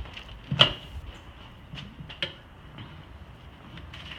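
A few sharp metallic knocks and clicks from tools and parts being handled during a tire change, the loudest about half a second in, over a faint steady high tone.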